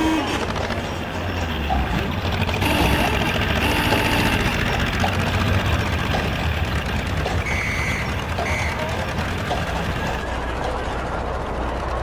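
Street-traffic ambience laid over the silent film: a steady low rumble with faint scattered ticks, and short high steady tones about three seconds in and again about eight seconds in.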